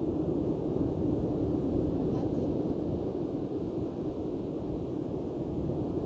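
Steady rushing noise of breaking sea surf and wind at the shore.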